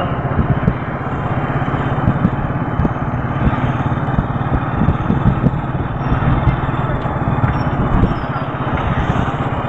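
Vehicle engine running steadily with road and wind noise, heard from on board while driving slowly.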